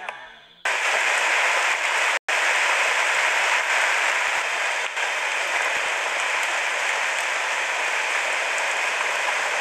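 Steady, even rushing hiss of water that starts abruptly about half a second in and drops out for an instant about two seconds in. The tail of background music fades at the very start.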